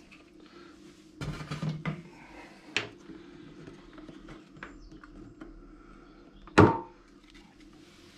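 Plastic side panels of a Kawasaki Z1000 being handled and pulled off their clips: a rustle, a few clicks, and a sharp snap a bit past six and a half seconds in.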